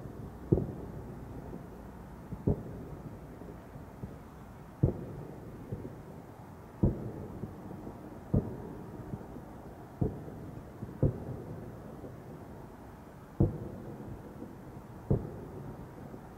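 Distant aerial firework shells booming: about nine loud bangs at irregular intervals of one to two and a half seconds, each trailing a short rumbling echo, with fainter pops in between.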